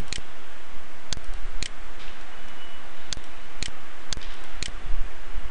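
Computer mouse buttons clicking: about six sharp single clicks at irregular spacing, over a steady background hiss.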